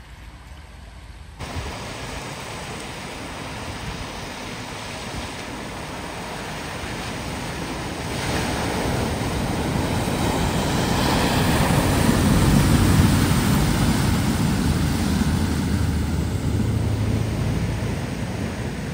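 Scania tanker lorry driving through deep floodwater: a rush of splashing water from its bow wave, swelling to its loudest about two thirds of the way through, over the low drone of its diesel engine. The first second or so is quieter outdoor ambience before the sound jumps up at a cut.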